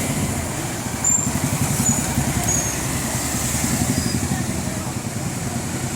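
A motor vehicle engine running steadily, with a few short high chirps over it.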